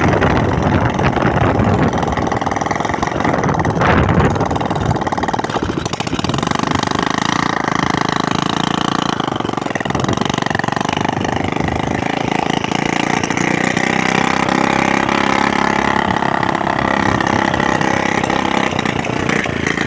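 Honda Biz 125's single-cylinder four-stroke engine running at a steady idle, settling to an even note after about six seconds.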